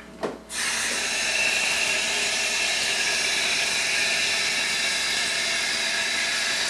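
Bathroom sink tap turned on about half a second in, after a short knock; water then runs steadily into the basin with a loud, even hiss as hands are rinsed under it.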